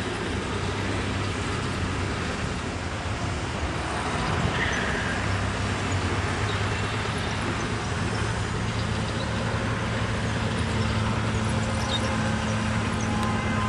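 CSX diesel-electric freight locomotive's engine running with a steady low drone as the train approaches slowly, growing a little louder about five seconds in, over the rumble of the train rolling on the rails.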